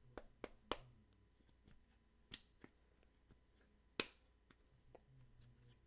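Near silence: room tone with a few faint, scattered clicks, the sharpest about four seconds in.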